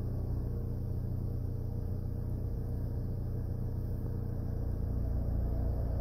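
Steady low rumble of an idling car heard from inside the cabin, with a faint, distant ACA Penetrator 15 siren tone held steady above it and swelling slightly toward the end.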